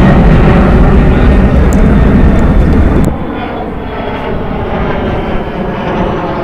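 Jet airliner's engines running loud at close range, a deep rumble that drops off about three seconds in, leaving a fainter steady engine whine.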